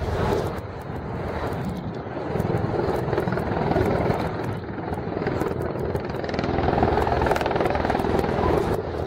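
Bell Boeing MV-22 Osprey tiltrotor hovering in helicopter mode, its two proprotors and turboshaft engines running in a steady, loud drone with a rapid, even blade beat. It grows a little louder about two-thirds of the way in.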